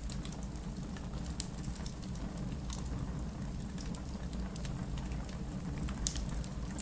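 Wood fire burning in a fireplace, crackling with irregular small pops over a low steady rumble; a sharper pop comes about a second and a half in and a louder one near the end.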